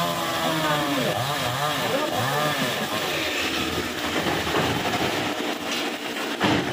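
Chainsaw cutting through a tree branch overhead, its engine pitch rising and falling again and again as it bites into the wood, with a sharp knock near the end.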